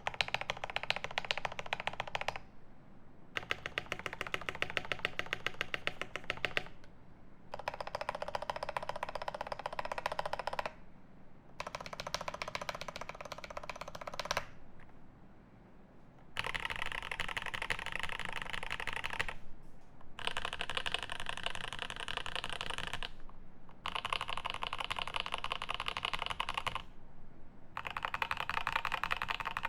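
Fast typing on a Grid 650 mechanical keyboard with lubed Alpaca V2 linear switches on an aluminium plate, under GMK keycaps. It comes in runs of about three seconds of rapid keystrokes with short breaks between them, and the runs sound brighter from about halfway through.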